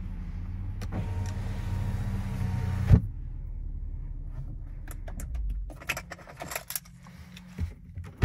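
2019 Audi RS5 Sportback's twin-turbo V6 idling, heard from inside the cabin, with one sharp knock about three seconds in; the engine is switched off and dies away about five and a half seconds in. A run of clicks from the cabin controls and the door handle follows near the end.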